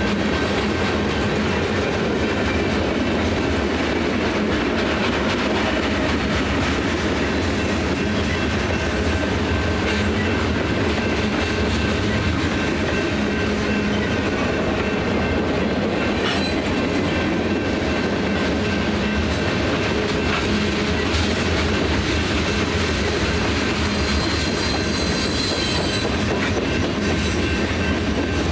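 Freight cars of a long Union Pacific train rolling steadily past: a continuous rumble with wheels clacking over the rail joints, and some wheel squeal, strongest about 24 seconds in.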